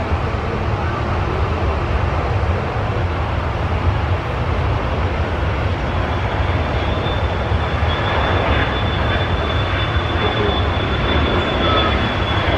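Jet engine noise from an approaching Boeing 737-200's Pratt & Whitney JT8D turbofans on landing approach: a steady rushing roar that grows slightly louder, with a thin high whine coming in about halfway through.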